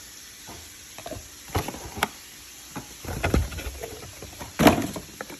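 Handling noise from unboxing: scattered clicks, taps and rustles of packaging and plastic hair-dryer attachments being picked up and moved, with one louder knock near the end.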